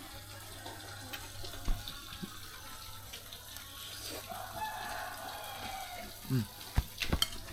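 Faint background with a distant rooster crowing once, about four seconds in, and a few sharp clicks near the end.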